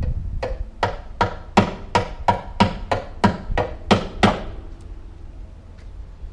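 Hammer blows straightening a Nissan Altima's steel fender mounts that were knocked off centre in a collision. About a dozen strikes come at roughly three a second, each with a short metallic ring, and they stop a little after four seconds in.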